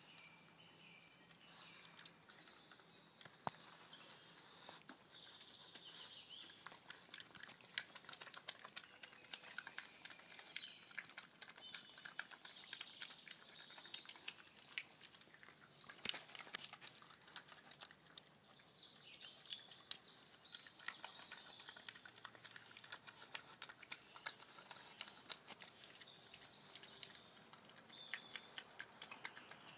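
Faint, irregular crunching clicks of a European badger chewing peanuts, with small birds chirping now and then in the background.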